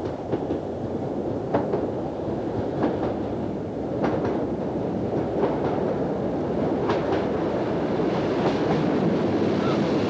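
Hastings-line diesel-electric multiple unit (Class 203) running by on jointed track. A steady engine and wheel rumble grows louder as the train draws near, with wheels clicking over rail joints every second or so.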